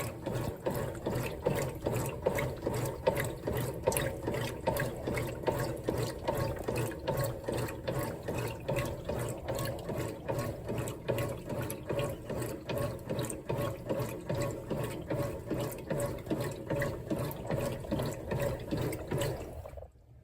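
Whirlpool WTW4815EW1 top-load washer's single-action agitator working back and forth through the wash water, about two strokes a second, during the wash cycle's extended agitation. It stops suddenly near the end.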